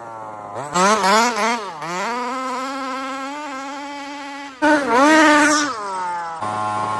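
Small two-stroke gas engine of an HPI Baja 5T RC truck buzzing and revving with quick throttle blips, about one second in and again about five seconds in, with steadier running between.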